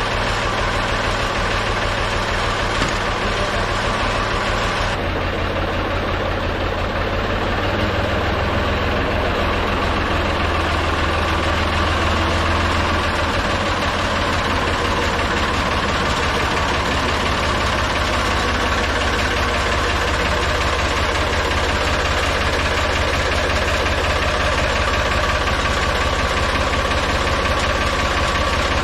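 Tractor-loader-backhoe engine running steadily at idle, with a change in its note about five seconds in.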